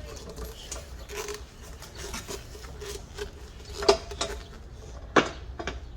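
Metal parts knocking, clicking and scraping as a turbo fitting is worked by hand onto a stainless steel tubular turbo manifold, with two sharper knocks near the end.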